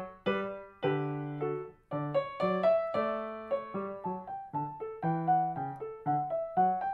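Blüthner grand piano played with both hands: a steady run of short separate notes in the melody over lower bass notes, with a brief break just before two seconds in.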